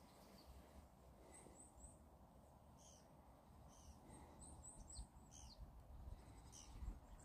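Faint bird chirps: short, high notes, twice in quick runs of three, with a few longer falling notes between, over a near-silent outdoor background.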